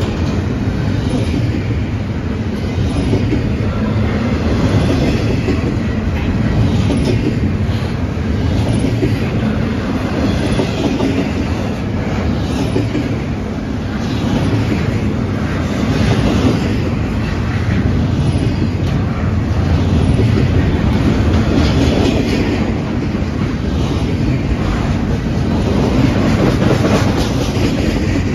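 Norfolk Southern freight train's double-stack container well cars rolling past, a steady rumble of steel wheels on rail with clacking as the wheels cross rail joints.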